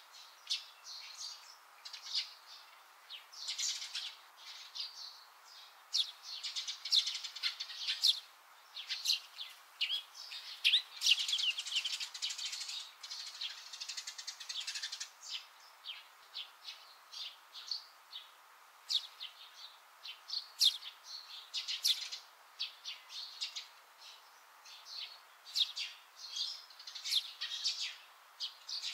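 Small birds chirping outdoors: many short, high chirps and quick falling notes in irregular runs, busiest around the middle.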